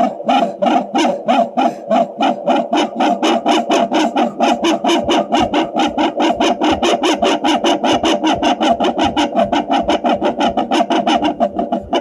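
A handheld Facelake fetal Doppler's loudspeaker giving a rapid, even, pulsing whoosh, with the probe on the ribs. It is the amplified sound of her own deep breathing, which the Doppler reads as a heart rate in the fetal range; it is not a baby's heartbeat.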